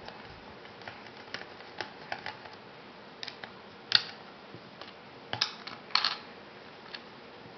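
Small parts of a RAP4 T68 paintball magazine being handled and undone by hand: scattered light clicks and taps of plastic and metal, the sharpest about four seconds in and a few more around five to six seconds.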